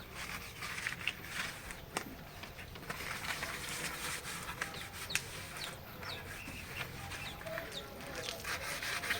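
Chickens clucking amid scratchy scraping and rustling noise, with scattered light knocks.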